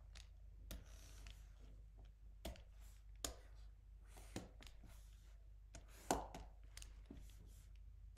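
Scattered faint clicks and taps of a computer mouse being used to select and clear part of a drawing, the loudest about six seconds in, over a low steady hum.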